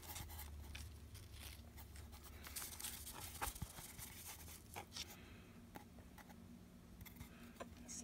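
Faint scratching and scattered light clicks of fingers handling a dried cicada's stiff wings and pushing a pin into a pinning board, over a low hum.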